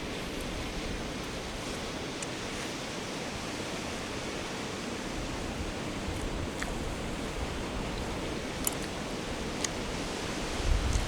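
Steady wash of sea surf, with a few faint clicks in the second half and a low rumble rising near the end.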